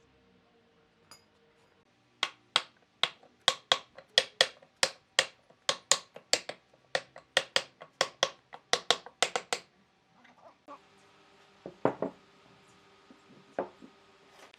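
Hammering: a steady run of about twenty sharp strikes, roughly three a second, then two heavier knocks a few seconds later.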